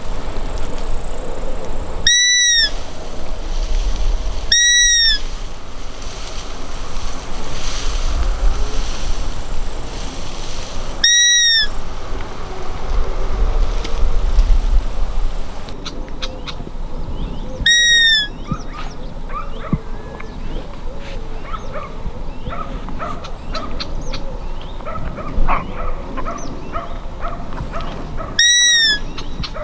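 Roe deer lure call blown by hand, imitating a roe doe to draw in a roebuck: five short, high whistle-like bleats, each rising and falling quickly, spaced a few seconds apart.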